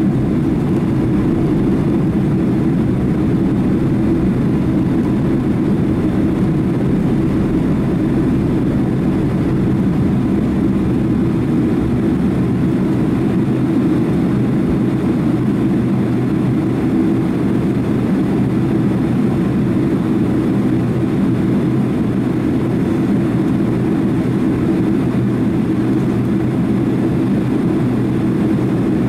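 A Boeing 767-300 airliner's jet engines running: a loud, steady drone that holds the same pitch and level throughout.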